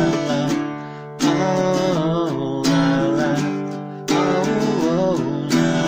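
Acoustic guitar strummed in full chords, one strong strum about every second and a half with the chord left ringing between strums, while a voice sings a gliding melody over it.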